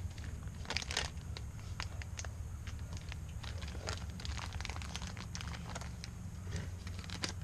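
Packaging being cut and torn open with a knife, with irregular crinkling and crackling of the wrapping, over a steady low hum.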